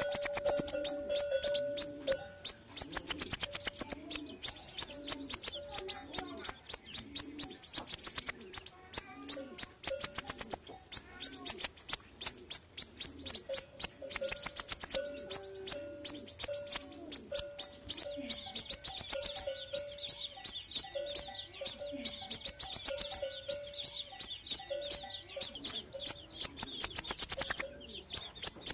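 Sunbird song: fast runs of high, sharp chirps strung closely together, broken by short pauses.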